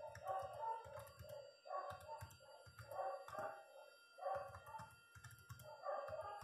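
A dog barking repeatedly, about eight barks at irregular gaps.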